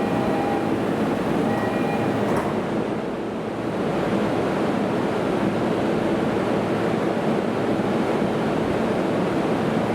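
A Toei Shinjuku Line train running alongside the station platform, a steady, loud rolling rumble. Faint tones are heard over it in the first couple of seconds, with a click about two and a half seconds in.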